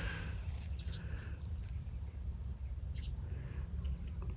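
Steady high-pitched chorus of insects trilling, with a low rumble underneath.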